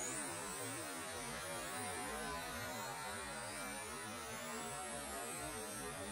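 Electric 1:10 RC touring cars running: faint, high motor whines that rise and fall as the cars accelerate and brake, over a steady low hum.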